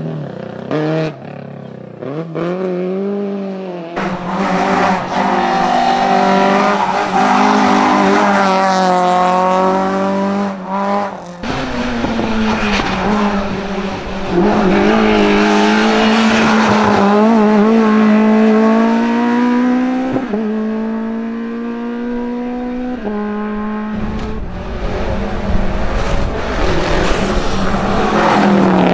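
Race car engines on a hillclimb run, revving up through the gears with the note climbing and dropping at each shift, along with some tyre squeal. The sound switches abruptly several times to a different car.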